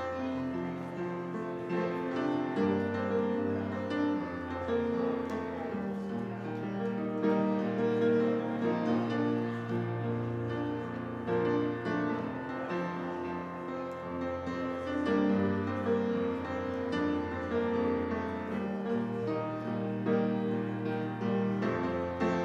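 Slow instrumental music led by piano, held chords changing every second or two.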